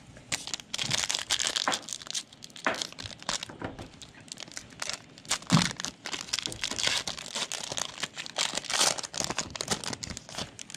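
Trading-card pack wrapper being torn open and crinkled, an irregular, dense crackling with a few sharper tearing sounds.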